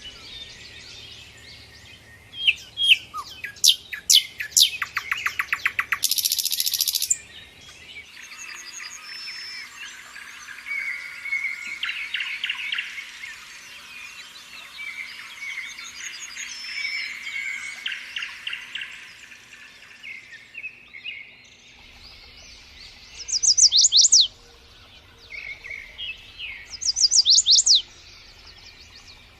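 Several songbirds singing and calling together, with many overlapping chirps and trills. Bursts of rapid repeated notes come in the first seven seconds. Loud sharp whistles sweeping down in pitch come twice near the end. The background changes abruptly twice, as if separate recordings were joined.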